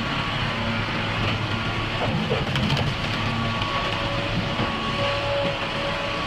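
Log-splitting machinery running: a steady mechanical hum with clattering, busiest about two and a half seconds in.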